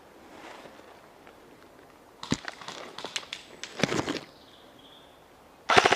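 Dead leaves and twigs crackle and snap underfoot for about two seconds. Near the end an airsoft gun fires a loud, rapid full-auto burst.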